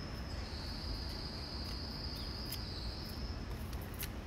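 An insect's steady high buzz, held for about three and a half seconds before it fades out, over a low outdoor rumble.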